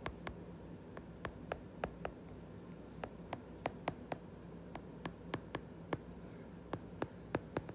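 Hard stylus tip tapping and clicking on a tablet's glass screen while handwriting, a quick irregular run of sharp little ticks, several a second, with short pauses between strokes.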